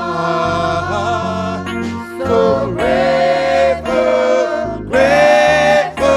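Gospel worship song sung by voices over instrumental backing, the singers holding long, sustained notes.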